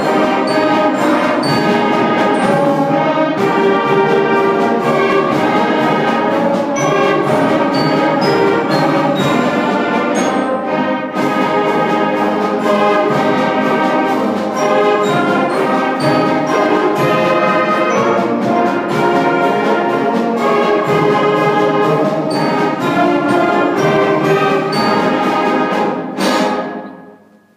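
Concert band of woodwinds and brass playing a piece together, full and loud; the music ends about a second before the end, the sound dropping away quickly on the final chord.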